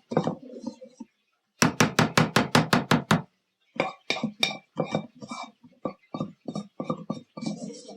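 Knife chopping on a cutting board: a quick run of about ten sharp strokes, then after a short pause slower, softer strokes.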